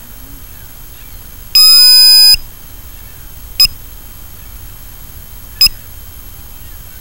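Electronic beeper tones: a loud burst under a second long of several tones sliding up and down past each other, about one and a half seconds in, then single short beeps every two seconds over a faint steady hiss.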